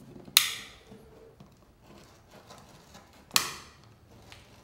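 Metal razor scraper scraping leftover traction-mat foam and glue off a jet ski's deck: two sharp strokes about three seconds apart, each a quick rasp that fades fast, with faint scratching between.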